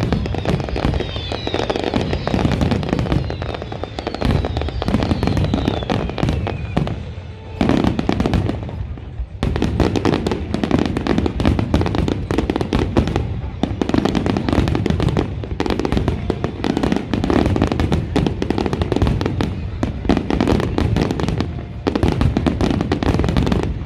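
Fireworks display: a rapid, continuous barrage of bangs and crackling bursts, easing briefly about eight seconds in before picking up again.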